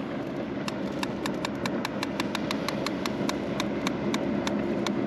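Fishing reel ticking in an even rhythm of about five clicks a second while a catfish is hooked and being fought on the bent rod, over a low steady hum.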